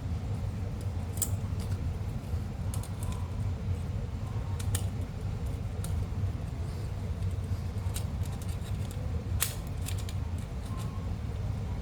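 Scattered light metallic clicks and taps from handling the fan motor's brush holder and small tools, over a steady low hum.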